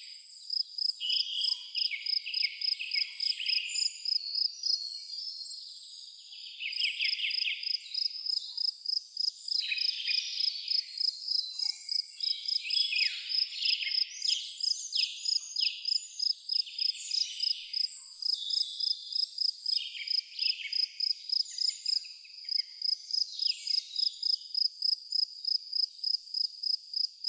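A cricket chirping steadily in a regular high-pitched pulse, about two chirps a second, with several birds calling and singing in short phrases over it.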